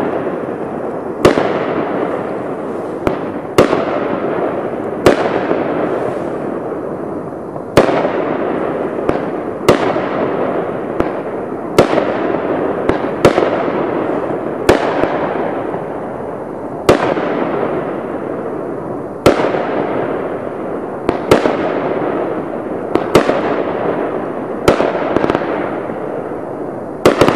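A 20-shot, 300-gram 'Graduation Day' aerial repeater cake firing its shots one after another, a sharp report about every one to two seconds, each followed by a hissing tail that fades before the next.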